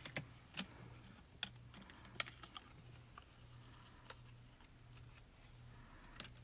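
Light, scattered clicks and taps of paper die-cut pieces and a small clear photopolymer stamp being handled with fingers and fingernails, half a dozen sharp clicks spread a second or so apart, over a faint steady low hum.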